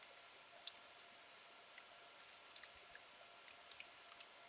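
Faint computer keyboard typing: a few scattered keystrokes over a steady low hiss.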